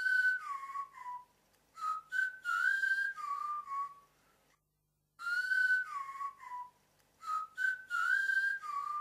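A tune whistled twice, the second time after a short gap: each time a sliding, falling phrase followed by a few short notes that rise and fall again.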